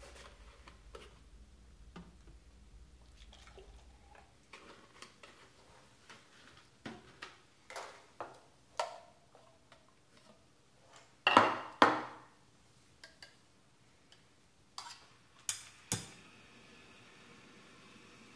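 Stainless steel milk pitchers clinking and knocking as they are handled and milk is poured between them, in scattered short strikes; the loudest clanks come about 11 and 12 seconds in, with a few more sharp clinks near 15 to 16 seconds.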